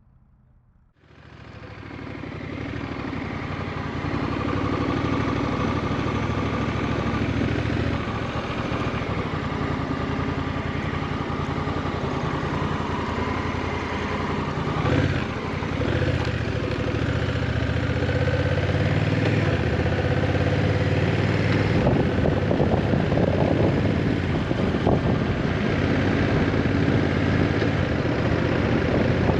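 Honda Rebel 1100 motorcycle's parallel-twin engine running on the move, with road and wind noise. It comes in suddenly about a second in and builds over the next few seconds, then holds steady.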